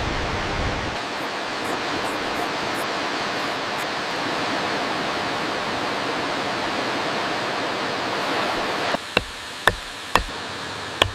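Steady rush of falling water from a waterfall. About nine seconds in it drops away and four sharp knocks follow in quick succession.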